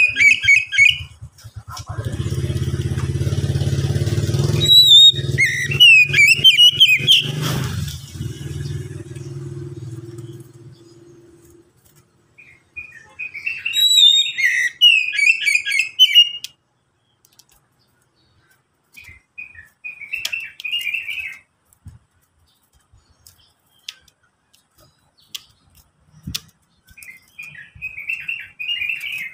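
Oriental magpie-robin singing in five bursts of rich, varied whistled phrases with pauses between them. A low engine hum comes in about two seconds in and fades away by about eleven seconds.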